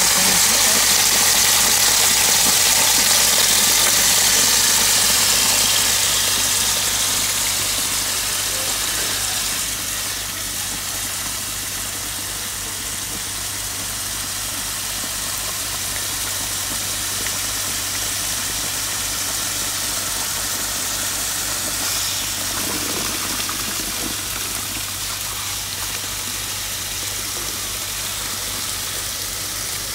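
An engine running steadily with a low hum, under the rush of wet grout pouring out of a pump hose nozzle into concrete block cores. The rushing is loudest in the first few seconds and then eases.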